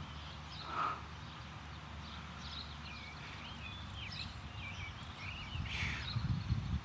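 Small birds chirping in a run of quick, wavering calls through the middle, over a steady low outdoor rumble.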